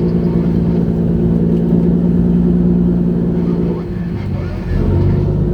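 Fishing trawler's engine running steadily with a low, even drone; about four seconds in it drops back and shifts in pitch, then picks up again near the end.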